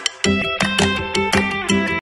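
Background music: plucked-string notes in a steady rhythm, with a fuller low bass coming in after a brief dip about a quarter second in.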